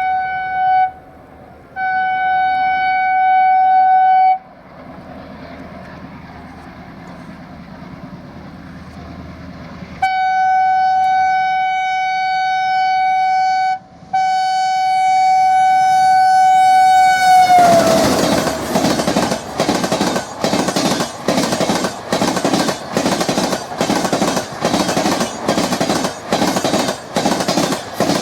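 Diesel locomotive horn: a short blast, a longer one, then two long blasts, the last one dropping in pitch as the locomotive passes close by. The passenger coaches then go by at speed, their wheels clacking loudly over the rail joints in a steady, even rhythm.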